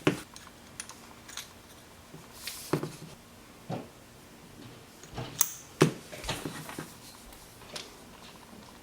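Scattered light clicks and knocks as the parts of a hand-made multi-bit screwdriver, its turned wooden handle and hollow metal stem, are handled and pushed together in a dry fit.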